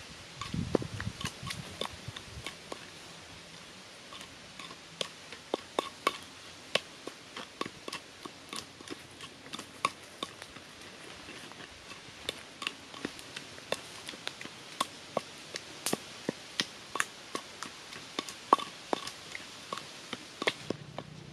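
Pestle pounding a wet red paste in a clay mortar: irregular sharp knocks, about two a second, with short pauses between runs.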